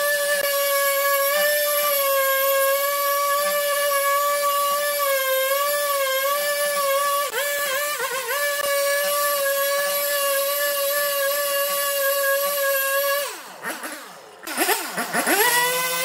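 Husqvarna two-stroke chainsaw cutting into a log at high revs with a steady, high-pitched whine that sags briefly under load partway through. About 13 seconds in the throttle is let off, so the pitch drops away and the sound quietens. It then revs back up to full speed near the end.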